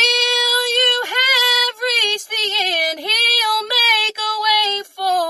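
A woman singing a gospel song solo and unaccompanied, in held, sliding sung phrases with short breaks between them.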